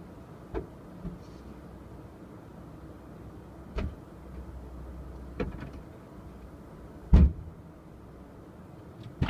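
Faint low rumble heard from inside a car, with about six scattered knocks and taps, the loudest about seven seconds in.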